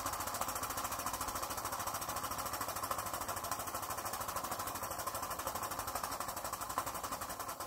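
Graham Industries VR1A double-acting model steam engine running with a fast, even beat of exhaust puffs and clatter, fading slightly toward the end. It is running down on the last of the steam after the supply is shut off, the boiler having lost pressure.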